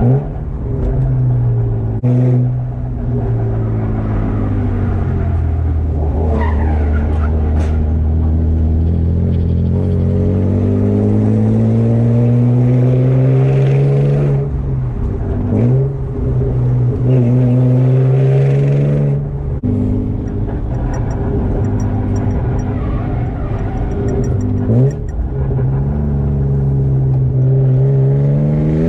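BMW E36's engine pulling through the gears on a twisty road: the pitch climbs steadily under throttle, then drops sharply at each gear change or lift several times, with a long climb through the middle.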